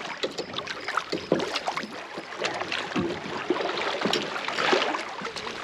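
Kayak paddles dipping into lake water: irregular splashes and drips.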